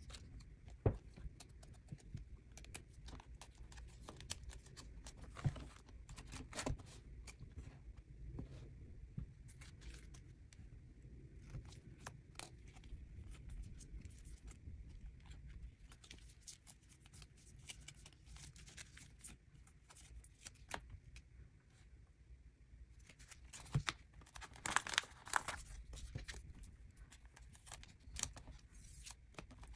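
Faint handling sounds of plastic-sleeved photocards and clear binder pocket pages: soft rustling and crinkling with scattered light clicks, and a louder stretch of crinkling about three quarters of the way through.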